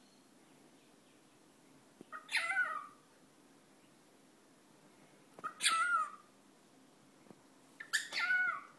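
Cockatiel imitating a human sneeze three times, about three seconds apart: each a short catch followed by a breathy, falling squawk lasting about half a second.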